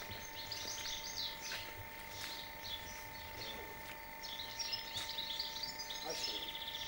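Small songbirds chirping and twittering in quick runs of short high notes, about a second in and again from about four and a half seconds.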